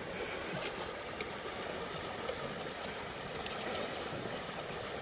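Steady rush of a cold snowmelt river or creek flowing.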